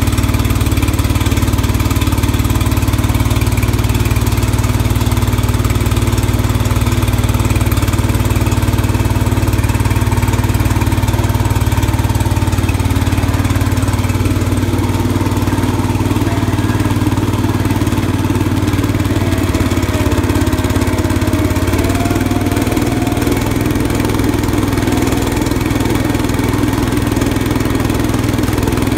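Old Cub Cadet garden tractor engine running steadily just after a cold start, having sat unused for about a month. Its note shifts slightly about three-quarters of the way through, as the tractor is driven.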